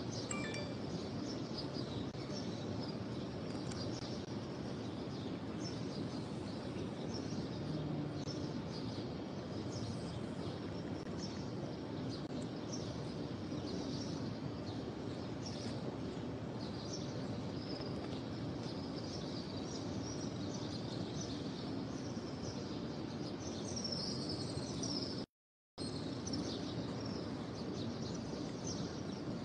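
Many small birds chirping in quick, overlapping calls over a steady low background hum. The sound cuts out completely for about half a second near the end.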